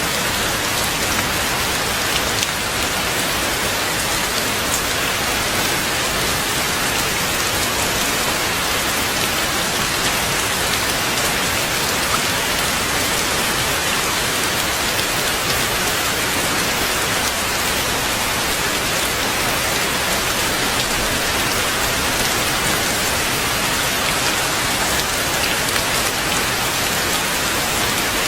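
Heavy rain falling steadily: an even, unbroken hiss with a few distinct drop hits.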